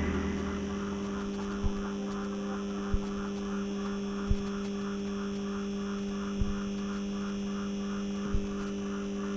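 Steady low electrical hum drone with a fast fluttering pulse above it, about three beats a second, and five soft low thumps scattered through it.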